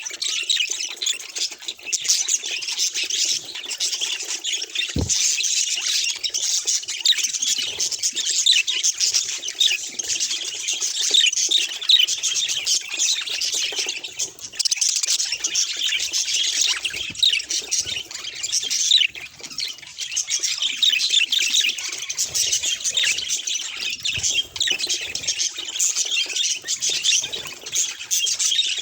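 Budgerigar chattering: a continuous stream of rapid, high chirps and warbles, with one brief knock about five seconds in.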